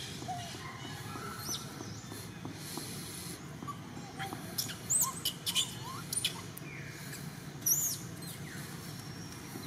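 Short, high-pitched animal squeaks and chirps: one about a second and a half in, a quick run of them about halfway through and one more near the end, over a steady low background rumble.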